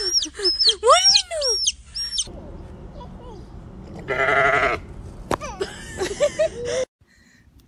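A chick peeping in quick, high, arching cheeps for about two seconds, then a sheep bleating once with a wavering, quavering tone about four seconds in.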